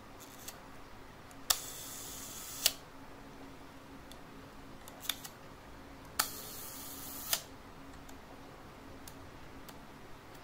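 A Rolleicord twin-lens reflex's Compur leaf shutter fires twice on a slow speed of about one second. Each time there is a sharp click as it opens, a steady whir of its slow-speed gear train for a little over a second, and a click as it closes. Faint small ticks from the controls fall between the firings.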